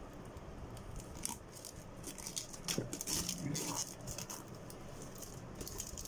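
Hands turning over and gripping a plastic-wrapped cardboard box: quiet, scattered rustles, taps and light scrapes.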